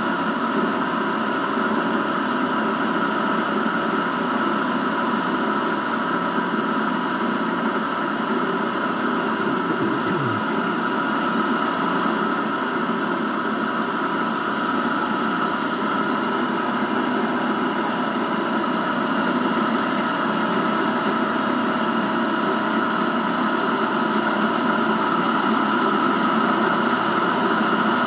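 Vertical milling machine cutting a slot with a carbide end mill under heavy load: a steady machining drone of the spindle and motor, with the cutting noise of the tool.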